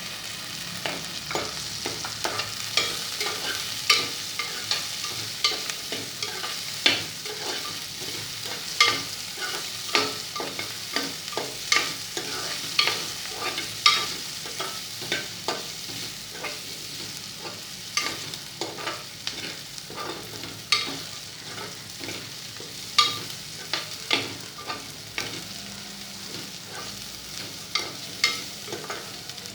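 Chopped onion sizzling in oil in a pressure cooker, stirred with a spoon that clicks and scrapes against the metal pot many times at an uneven pace.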